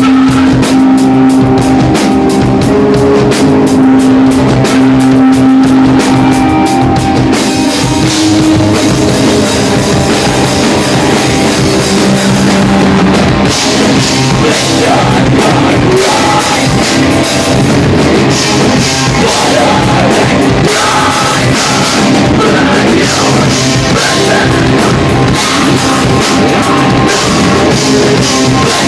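Live rock band playing loud: electric guitars over a drum kit. A steady drum beat with held guitar notes gives way to a denser, fuller sound about seven seconds in.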